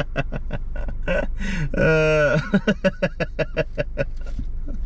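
A man's voice making quick short syllables with no clear words, with one long drawn-out, slightly falling vowel about two seconds in, over a steady low hum.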